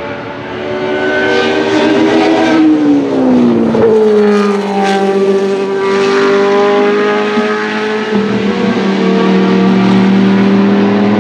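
1983 Williams FW08C's Ford Cosworth DFY 90° V8 racing engine running at speed as the car passes. Its note falls in pitch over about a second and a half as it goes by, then holds steady as the car pulls away through the corner.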